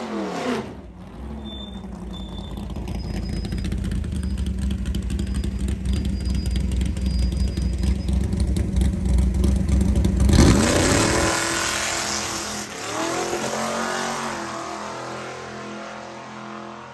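Drag race car engine idling and building at the starting line, then launching hard about ten seconds in. The engine note winds up and fades as the car runs away down the strip.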